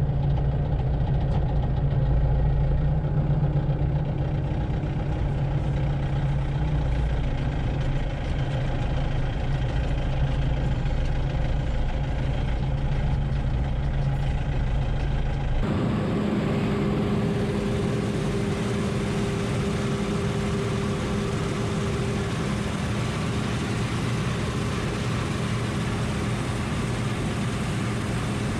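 Tractor engines running steadily. About halfway through the sound switches abruptly to a different engine with a higher, steady note and more hiss.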